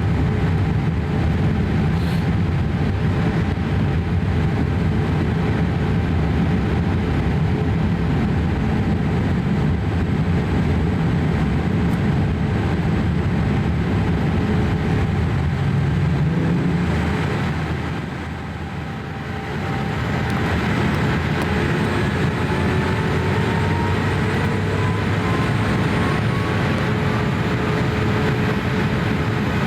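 Cabin noise inside a Boeing 787-8 in flight: a steady rush of airflow over the steady drone of its Rolls-Royce Trent 1000 engines. The noise eases briefly about two-thirds of the way through, and faint whines then slowly rise in pitch.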